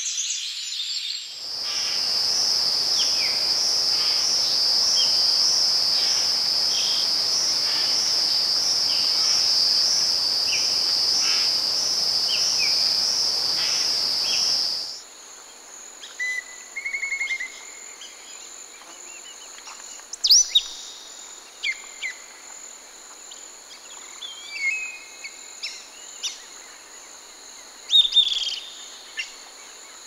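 Tropical forest ambience: a loud insect chorus with a steady pulsing high trill, with short bird chirps scattered over it. About halfway through it cuts abruptly to a quieter, thinner insect hum with occasional bird whistles and calls.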